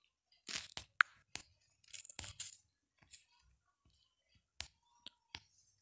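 Faint scattered clicks and brief rustling noises, about a dozen short sounds with quiet between them.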